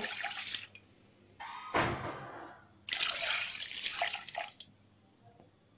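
Milk pouring from a mug into a stainless steel pot, splashing in three spells with short breaks between them, stopping about four and a half seconds in.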